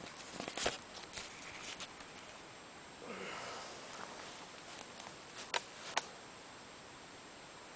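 Footsteps and rustling in dry leaf litter, then two sharp metallic clicks about half a second apart: the bolt of a Krico .22 LR rifle being worked.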